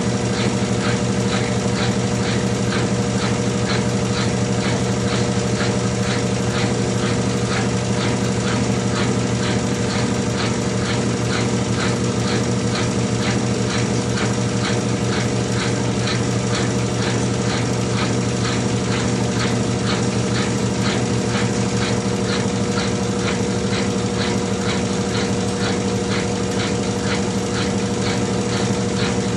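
Consul CWH12 12 kg washing machine in its final spin: a steady motor-and-drum hum with a fast, even ticking over it.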